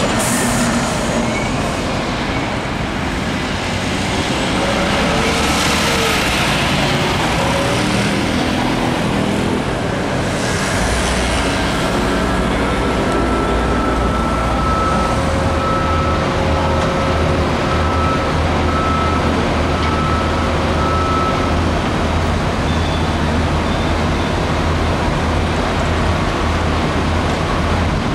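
City street traffic running steadily, with a heavy engine's low steady hum joining about a third of the way in.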